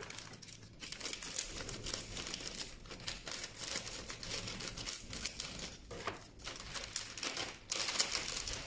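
Foil snack pouch crinkling and rustling as it is handled and cut open with scissors, in a continuous crackle that gets louder near the end.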